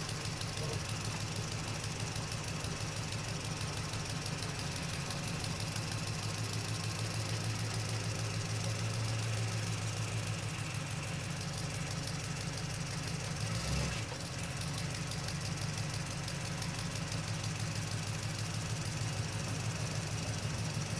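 An engine running steadily at idle with a rapid, even pulsing. It falters briefly about two-thirds of the way through, then carries on.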